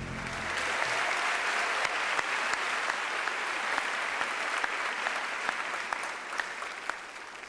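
Audience applauding: a steady crowd clapping that eases off near the end.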